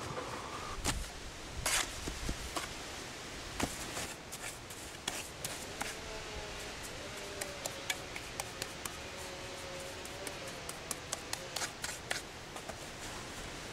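Stone masonry work: rocks knocking and grating against each other, then a trowel scraping and patting wet mortar around the stones, with a quick run of taps near the end, over a steady hiss.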